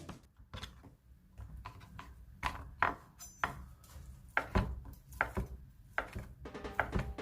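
Knife chopping on a wooden cutting board in uneven strokes, roughly two or three a second with short pauses.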